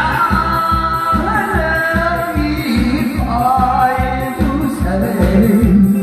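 A man singing through a microphone and PA over a backing track with a steady beat of about two beats a second.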